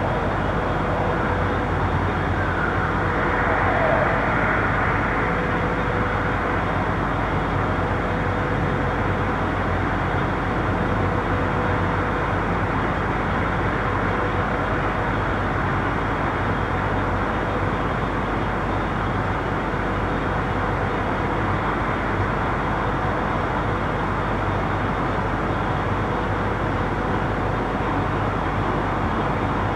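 Steady night-time street traffic noise: a continuous rumble and hiss of tyres and engines from a busy road. One vehicle passes louder, swelling and falling in pitch about four seconds in.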